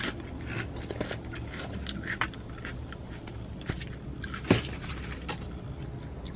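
Tortilla chips being crunched and their crinkly bag handled: scattered sharp crunches and crackles, the loudest about two and about four and a half seconds in, over a low steady hum.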